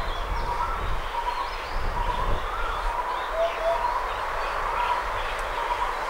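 Eurasian hoopoe singing: a soft, low, paired 'hoop-hoop' a little past halfway. Other small birds chirp and warble around it.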